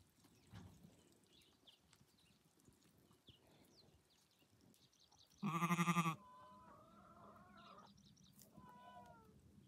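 Sheep bleating as the flock walks: one loud, wavering bleat about five and a half seconds in, lasting under a second, with fainter bleats from other sheep before and after it.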